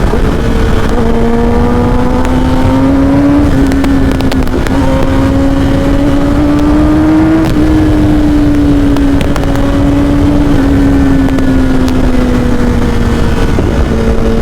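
Kawasaki ZX-10R's inline-four through an Akrapovic full-system exhaust, ridden under gradual acceleration: the engine note climbs slowly for several seconds, then falls away as the throttle eases, with a few pops and crackles from the exhaust. Heavy wind rush on the bike-mounted microphone.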